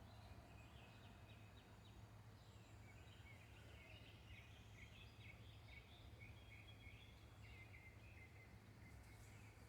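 Faint birds chirping, many short repeated notes, over a low steady background hum.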